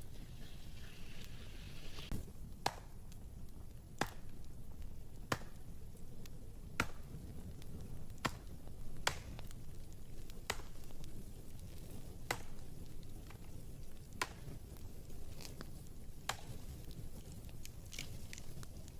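Sharp clicks or knocks at a slow, fairly even pace, about one every second or two, over a steady low rumble.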